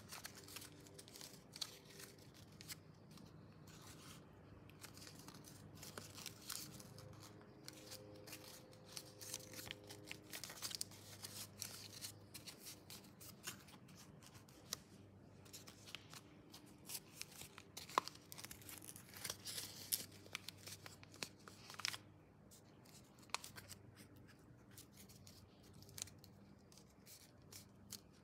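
A paper plane being folded and creased by hand: quiet, irregular rustles, crinkles and short crackles of paper as the folds are worked and pressed.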